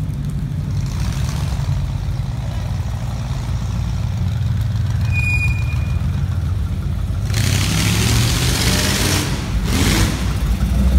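Hot rod car engine running with a steady deep rumble, revved briefly about three quarters of the way in and again just before the end.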